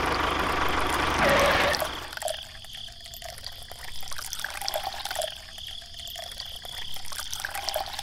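A loud rushing noise for about the first two seconds, then small water trickling and bubbling quietly into a puddle.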